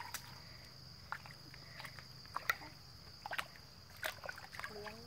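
Muddy water sloshing and splashing in a handful of short, separate bursts as hands grope through a shallow mud puddle for fish. A steady high insect drone runs underneath.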